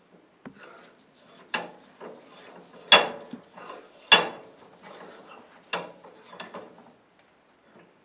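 A bench vise being closed on a small metal lighter part: a series of sharp metallic clicks and clanks with scraping between, the two loudest about three and four seconds in.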